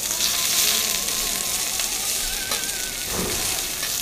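Meat sizzling as it fries in olive oil in a sauté pan, stirred with a utensil that clicks briefly against the pan. Soft background music with a wavering melody plays over it.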